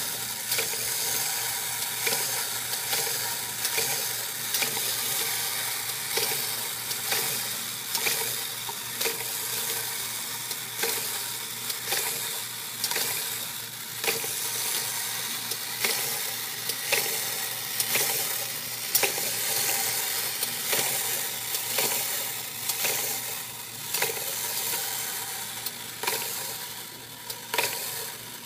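Clockwork spring motor of a 1930s wind-up toy bunny running: a steady whirring buzz with a sharp click about once a second.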